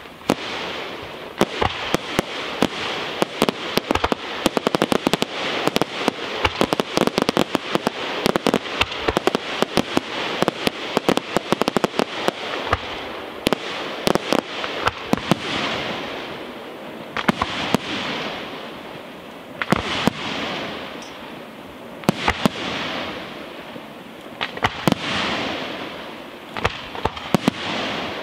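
Aerial fireworks display: a dense run of rapid popping and crackling from bursting shells for the first dozen seconds, then swells of hissing about every two to three seconds, each with a cluster of sharp pops.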